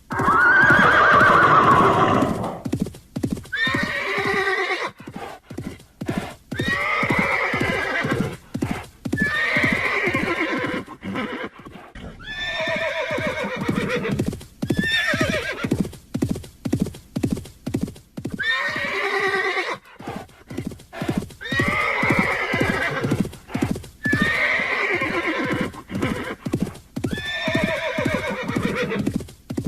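Horses neighing over and over, about a dozen whinnies with a shaking, falling pitch, one every two seconds or so; the first, right at the start, is the loudest. Hooves clop steadily underneath.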